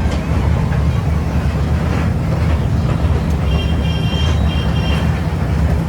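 Toy train running, with a steady low rumble from its engine and wheels. A high steady tone sounds twice in quick succession a little past the middle.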